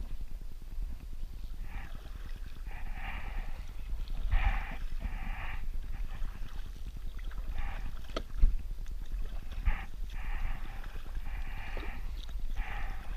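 Kayak paddle strokes, the blades dipping and pulling through calm water about once a second in a steady rhythm, over a low wind rumble on the microphone.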